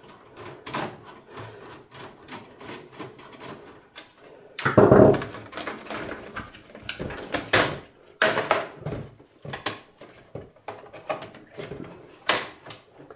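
Irregular clicks, taps and small metal knocks of a screwdriver and fingers on a desktop PC's steel case as a modem expansion card is unscrewed and worked loose from its slot. There is a louder clatter about five seconds in.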